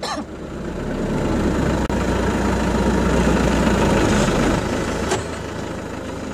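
Off-road 4x4 engine running close by, swelling in level and then easing off about four and a half seconds in, with a single short click about five seconds in.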